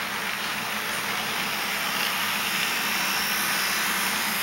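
HO scale model diesel locomotives passing close on the track: a steady whirring running noise of motors and wheels on rail, growing a little louder as the engines go by.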